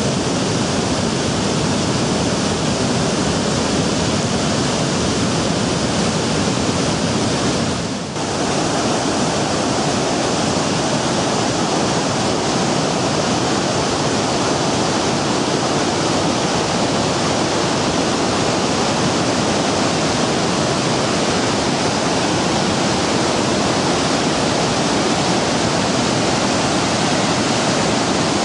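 Steady, loud rush of fast-flowing floodwater, with a brief dip about eight seconds in.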